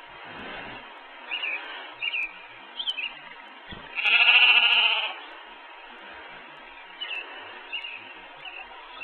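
One loud, bleat-like animal call lasting about a second, about four seconds in, over a few short, high, scattered peeps that fit the farm's young chicks.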